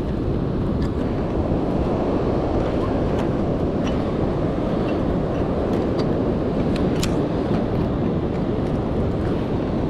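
Steady rush of ocean surf and wind on the microphone, with a few faint clicks, the clearest about seven seconds in.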